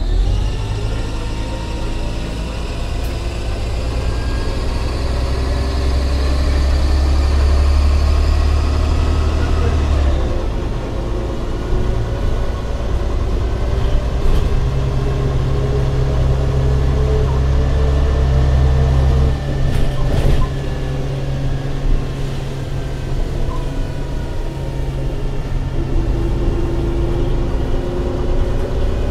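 MCW Metrobus double-decker's diesel engine and drivetrain heard from inside the lower saloon while under way, with a whine that rises slowly in pitch. The engine note changes about ten seconds in and again just before twenty seconds, and a sharp knock comes about twenty seconds in.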